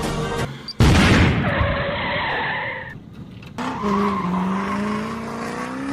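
A motor vehicle: a sudden loud burst about a second in, then, after a short gap, an engine note that slowly rises in pitch through the last few seconds.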